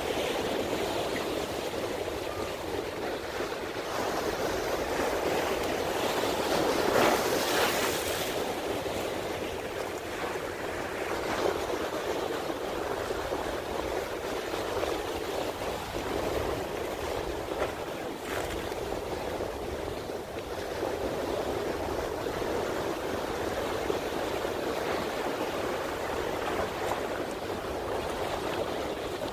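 Choppy channel water washing and splashing against the stone blocks of a jetty, with one louder surge and splash about seven seconds in.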